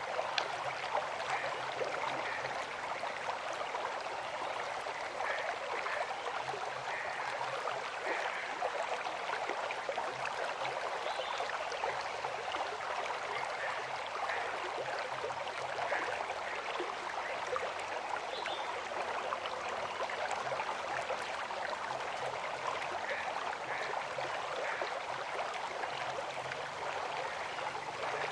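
River water flowing and rushing steadily, with small splashes scattered through it.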